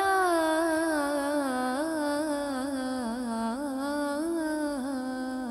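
A woman singing a Punjabi naat, holding one long ornamented note that wavers and slowly sinks in pitch, growing slightly softer toward the end.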